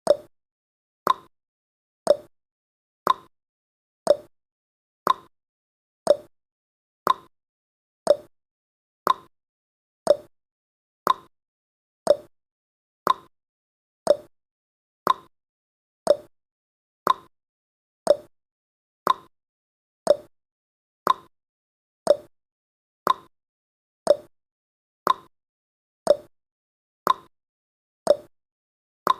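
Clock tick-tock sound effect of a countdown timer: a short, sharp click once a second, alternating between a lower and a higher click.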